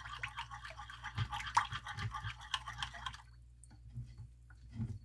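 Metal spoon stirring warm liquid briskly in a bowl, scraping and clinking rapidly against the bowl's sides as it mixes gelatin into raspberry Jell-O. The fast stirring stops about three seconds in, leaving a few faint clinks.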